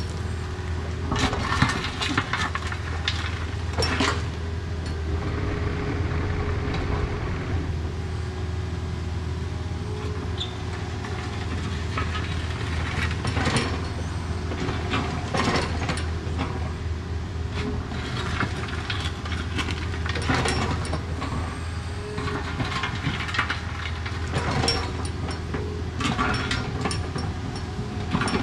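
Takeuchi mini excavator's diesel engine running steadily, with repeated clanks and rattles from the machine as it backfills and rough-grades the ditch.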